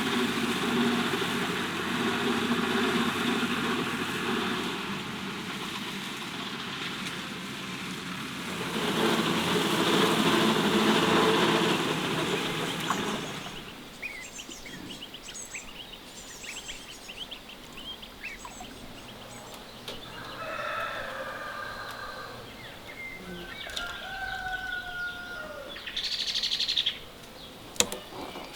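A loud, steady rushing noise with a low hum runs for the first half and stops about 13 seconds in. After it, birds chirp and call on and off, with a louder burst of calls near the end.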